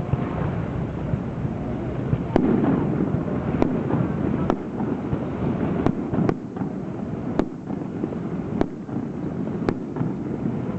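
Aerial firework shells bursting overhead: about eight sharp bangs at irregular intervals, the first about two seconds in, over a steady low rumble.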